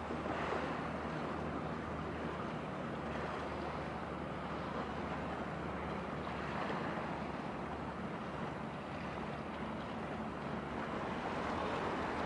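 A passing general cargo ship's engine giving a steady low drone, under a constant wash of wind and water noise.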